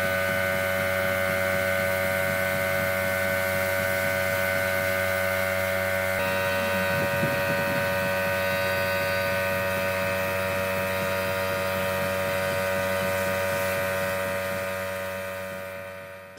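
Spray gun hissing as it sprays finish, over the steady hum of the air compressor that feeds it. The sound fades out near the end.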